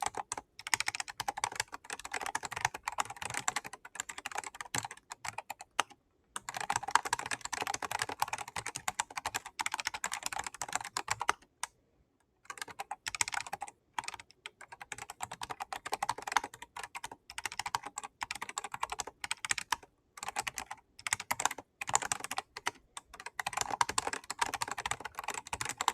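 Typing on the Riskeyboard 70, a 3D-printed mechanical keyboard: fast runs of key clicks broken by short pauses, one of about a second near the middle. This is its sound after a minor change that its builder says made an enormous improvement.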